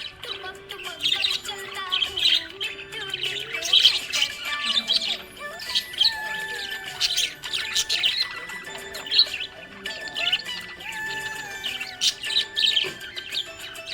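Budgie (budgerigar) chirping and chattering: a quick, unbroken stream of short chirps and squawks.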